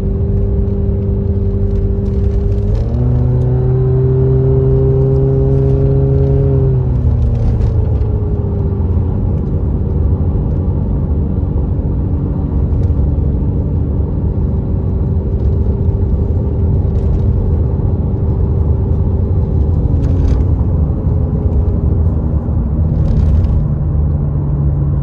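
Car engine and road rumble heard from inside the cabin while driving. The engine note steps up about three seconds in as the car accelerates, eases back down after about seven seconds, then holds steady and drops again near the end.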